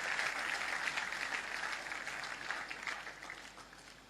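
Congregation applauding, many hands clapping together, dying away gradually over a few seconds.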